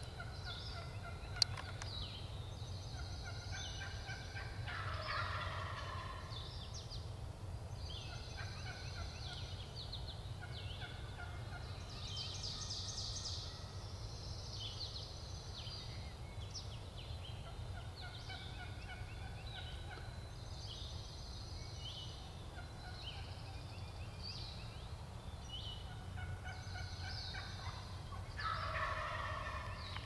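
Wild turkey gobbler gobbling twice, a rapid rattling call about five seconds in and again near the end, with songbirds chirping throughout.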